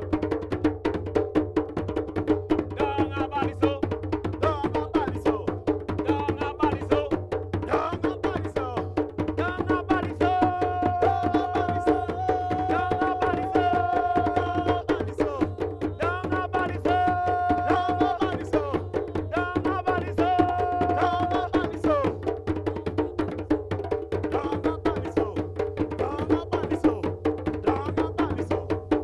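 A drum ensemble playing a fast, dense rhythm of hand-drum strokes with sharp, woody clicks. Between about ten and twenty-two seconds in, long held pitched notes sound over the drumming.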